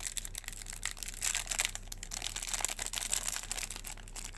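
Clear cellophane wrapper crinkling and crackling as fingers peel it off a stack of trading cards.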